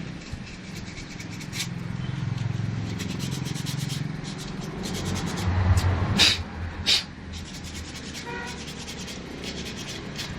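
Repeated rubbing and scraping strokes as a metal telolet horn part is scrubbed clean by hand, over a low steady hum. Two louder sharp clicks come about six and seven seconds in.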